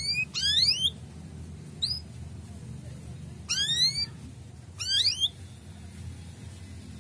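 Male canary giving its 'cuit cuit' calls: short bursts of quick, high, rising chirps, four bursts in all, the last about five seconds in.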